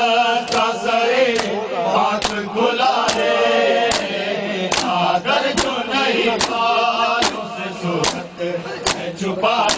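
Mourners chanting an Urdu noha in unison, over a steady beat of bare-handed chest-beating (matam) with many men slapping their bare chests together, a little more than one slap a second.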